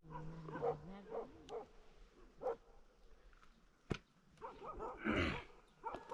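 A dog barking several times in short calls, with a louder, noisier bark about five seconds in.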